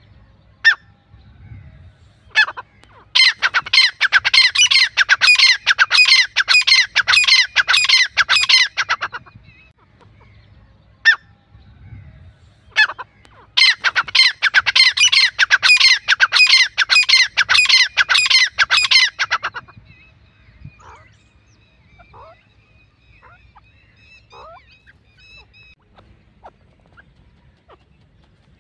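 Grey francolin calling: two long bouts of a loud, rapidly repeated call, each lasting about six seconds and opened by a few single sharp notes. Only faint scattered notes follow near the end.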